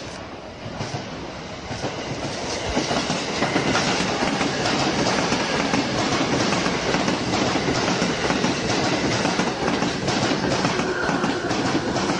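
JR East E353 series limited-express electric train running past close along the platform: the steady noise of its wheels on the rails, with some clatter, swells about two seconds in as the cars come alongside.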